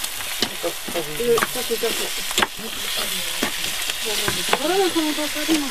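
Vegetables sizzling in a cooking pot over a fire, with a utensil clicking against the pot about once a second as they are stirred. A wavering, voice-like call sounds twice in the background.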